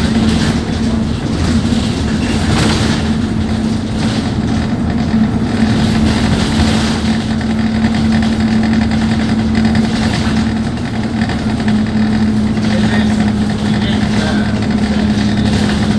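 Alexander Dennis Enviro200 bus's diesel engine running with a steady, even drone.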